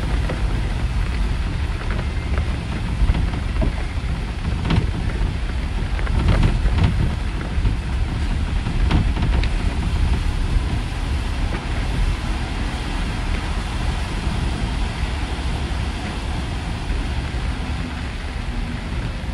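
Steady low rumble of a city bus riding on a wet road, heard from inside the bus, with tyre hiss from the rain-soaked pavement. A few light clicks and knocks come through around the middle.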